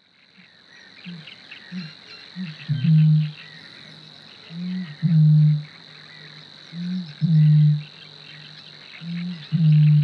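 Eurasian bittern booming from a reedbed: a series of about four deep, drawn-out booms roughly two seconds apart, each led by a shorter, softer note. It is the lowest voice of any Polish bird, likened to blowing across a bottle. A steady high-pitched insect tone and faint small animal calls run underneath.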